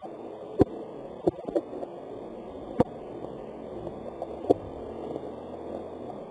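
Steady rain hiss with about six sharp taps scattered through it.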